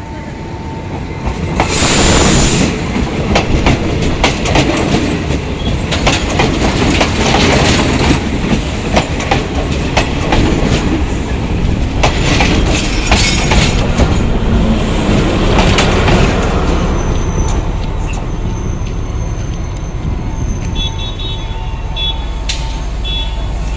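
Sri Lanka Railways S8 diesel-hydraulic multiple unit running on the line. Its wheels clatter over the rail joints in a dense clickety-clack with heavy rumble, getting louder about two seconds in. Toward the end the clatter eases and a thin, high wheel squeal comes through.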